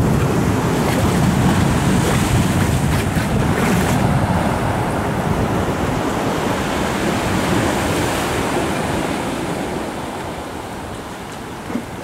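Sea surf washing onto a pebble beach: a steady rush that is fullest for most of the stretch and eases off near the end.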